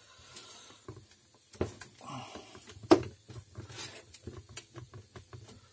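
Handling clicks and knocks from the plastic bottom cover and housing of a Shivaki SMG 5151 electric meat grinder being pulled at while the cover sticks, with one sharp, loud click about three seconds in and a run of small clicks after it.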